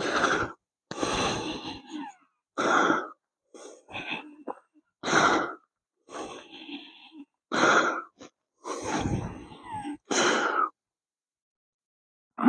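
A person breathing heavily close to the microphone: loud, short exhales about every two and a half seconds, alternating with softer, longer inhales.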